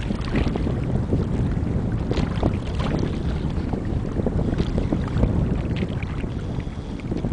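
Wind buffeting the microphone: a steady low rumble with short crackles throughout.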